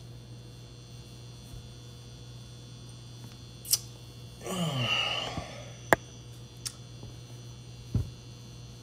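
Steady low kitchen hum while a pan preheats, broken by a few sharp clicks and knocks, the loudest about six seconds in. About halfway through comes a short sigh that falls in pitch.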